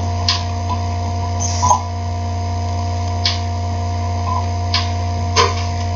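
Steady electrical mains hum, with about five small scattered clicks from thin wire ends being pushed into a feedback module's terminal block.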